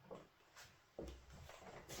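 Near silence, broken by two faint knocks: a soft one just after the start and a sharper one about a second in.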